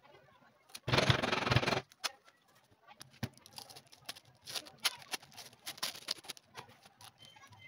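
Thin clear plastic film being pulled off a leather boot and handled: a loud rustling burst lasting about a second, starting about a second in, then scattered crinkling as the sheet is handled.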